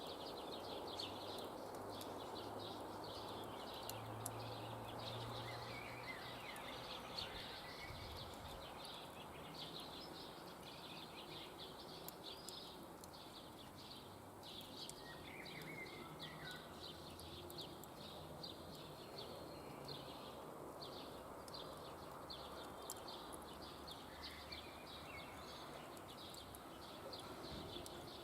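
Birds chirping continuously over a steady low hiss, with a few higher calls now and then and occasional sharp clicks.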